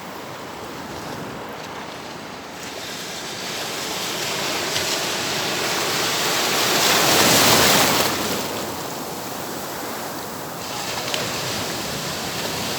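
Ocean surf: waves washing in, swelling to a loud break a little past halfway and then easing off.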